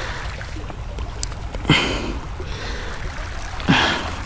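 A man's two short, breathy grunts of effort about two seconds apart, each dropping quickly in pitch, as he strains with a landing net that won't work. Underneath is a steady low rumble of wind on the microphone.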